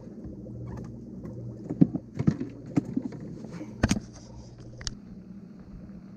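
Several knocks and thumps from handling gear inside a small open boat, about five in a row with the loudest near four seconds in, over a steady low hum.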